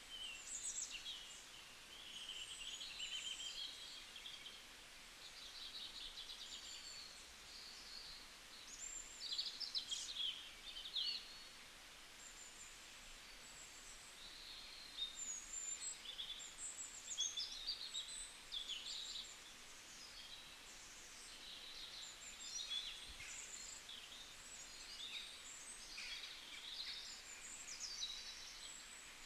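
Several songbirds chirping and singing, short high calls, trills and whistles overlapping one another, over a faint steady hiss of background noise.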